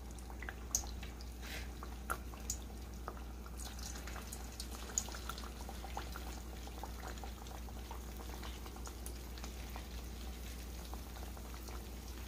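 Corn-masa pastelitos frying in hot oil in a skillet: a steady sizzle full of small crackles, with a few sharper pops in the first five seconds.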